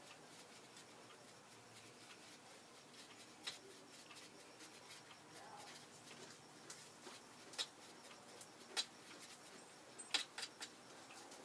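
A paintbrush mixing paint on an aluminium foil palette pan: faint scraping with a few sharp ticks of the brush against the pan, scattered through the second half and clustered near the end.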